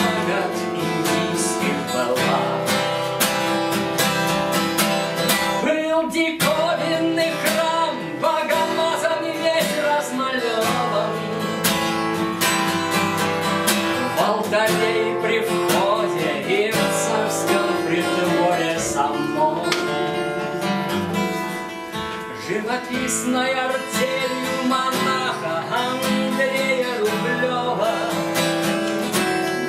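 Acoustic guitar strummed steadily, accompanying a man singing.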